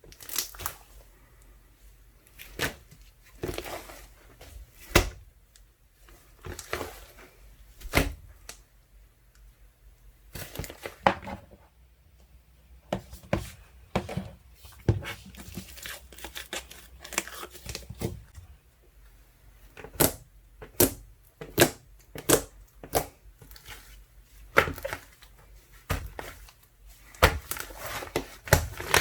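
Water-jelly slime, ice slime mixed with soothing gel, being squeezed and pressed by hand: irregular sharp clicks and crackling pops with short quiet gaps, coming thicker in the last third.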